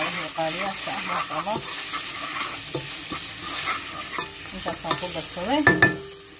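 A wooden spoon stirs spices, bay leaves and onion sizzling in hot oil, with repeated scraping strokes across the bottom of a stone-coated non-stick pot. Two sharp knocks come near the end, after which the stirring stops and only the sizzle is left.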